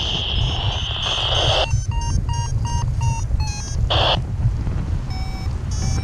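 Paragliding variometer beeping in short, evenly spaced beeps, about three a second, the climb tone that signals rising air, with wind rushing over the microphone underneath. A brief hiss sounds near the start and again about four seconds in.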